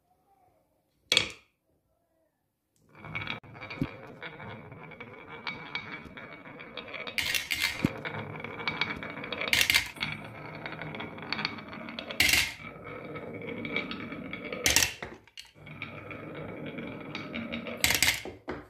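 Glass marbles rolling along a carved wooden wave track: a single click about a second in, then from about three seconds in a steady rolling rumble with sharp clacks every two or three seconds.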